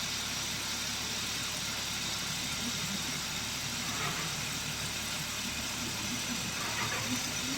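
Kia Stonic's 1.0 T-GDI three-cylinder turbo petrol engine idling steadily.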